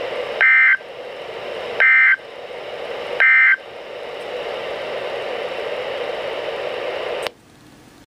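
NOAA Weather Radio through a Reecom R-1630 weather alert radio's speaker: three short bursts of SAME end-of-message data tones, each a buzzy digital warble about a second and a half apart, which mark the end of the alert broadcast. They sit over steady radio hiss, which cuts off suddenly near the end.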